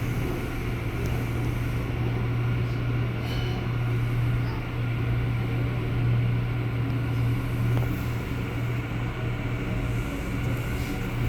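Steady low hum inside an R179 New York City subway car, holding one even pitch with a few faint ticks over it.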